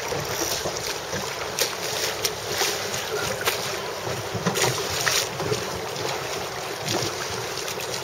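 Wind buffeting the microphone, with short gusty crackles, over water lapping around a small sailing dinghy.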